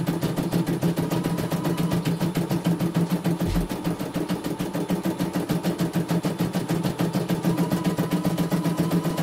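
CNY E900 computerised embroidery machine stitching on a test run: a steady motor hum under a rapid, even needle clatter of about nine stitches a second. A short low thud about three and a half seconds in.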